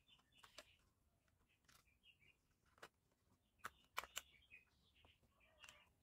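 Near silence with faint handling sounds: small clicks and rustles as wires and small parts are handled. The sharpest are a quick cluster of three clicks about four seconds in.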